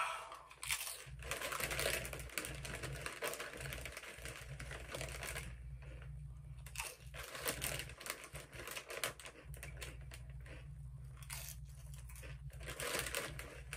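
Doritos tortilla chips crunching as they are bitten and chewed, in irregular crackles, with the plastic chip bag crinkling as a hand works in it.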